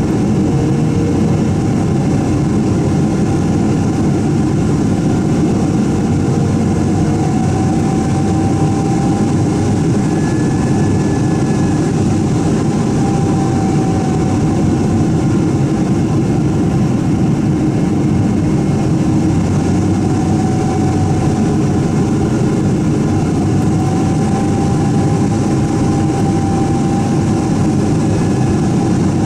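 Steady engine and airflow drone inside a Boeing 777-200's cabin on final approach, its Rolls-Royce Trent turbofans running, with a faint whine that drifts a little in pitch.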